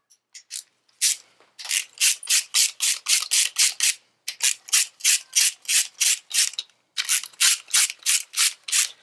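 Hand ratchet wrench clicking in quick, even strokes, about four a second, in three runs with short pauses between, as bolts are run down until they bottom out.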